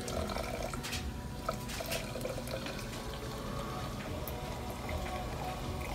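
Hot coffee poured from a glass carafe into a stainless steel travel tumbler, a steady trickling fill.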